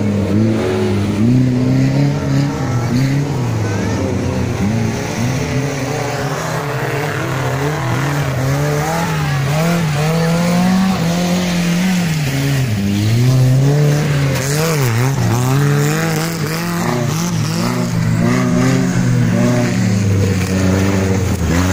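Off-road 4x4 engines revving hard, the pitch climbing and dropping again and again as the vehicles work up a dirt hill climb.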